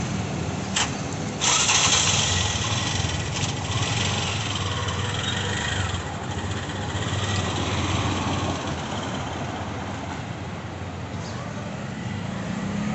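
Street traffic: motor vehicle engines running with a steady low hum, and a sudden louder burst of noise about a second and a half in that lasts about two seconds.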